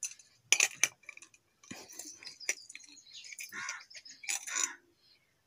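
Small stainless steel bowl clinking and scraping as a toddler handles it and picks food out of it, with a few sharp metallic clicks.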